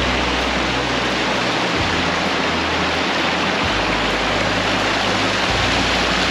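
Steady rushing water of a mountain stream or waterfall, loud and even throughout.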